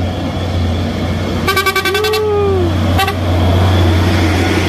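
Heavy dump truck's horn honking as the truck rounds the bend: a pulsing blast about a second and a half in, running into a tone that bends up and falls away, then a short second toot about a second later. The truck's engine runs underneath as it passes close by.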